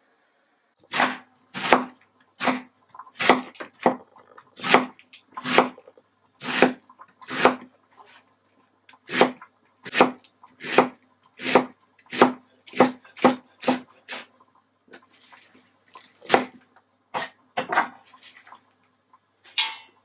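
Chef's knife slicing a head of white cabbage into thin shreds on a wooden cutting board: a steady series of crisp cuts, each ending on the board, about one every three-quarters of a second, with a couple of short pauses.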